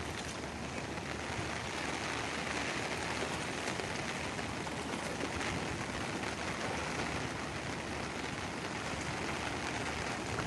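Steady water noise: an even, unbroken hiss of heavy monsoon rain and rushing floodwater.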